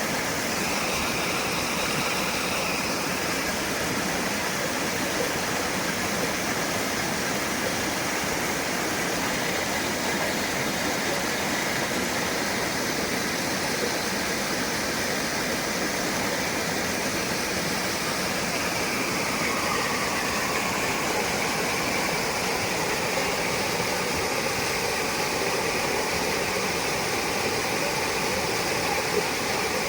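Steady rushing water noise with no break, with faint steady tones underneath, one of which slides downward about two-thirds of the way through.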